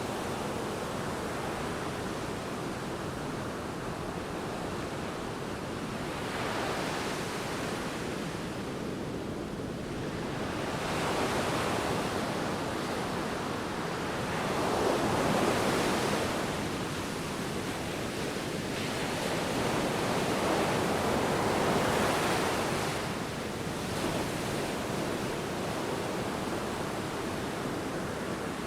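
Ocean waves breaking and washing in, a steady surf with several louder swells every few seconds, and some wind on the microphone.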